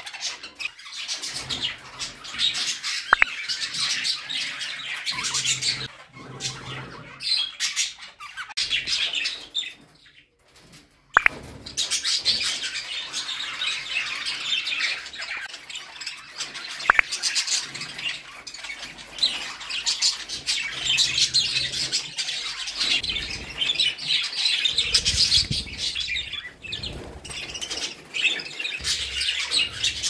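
Budgerigars chattering: a dense, busy stream of fast chirps, warbles and squawks, briefly dropping away about ten seconds in.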